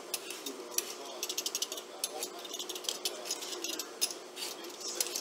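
Handheld vegetable peeler scraping the skin off a raw sweet potato in quick, repeated short strokes, heard as clusters of sharp rasping clicks.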